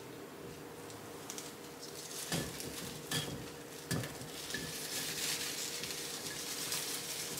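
Objects being handled close by: three sharp knocks about a second apart, then a few seconds of scratchy, rustling noise, over a steady low hum.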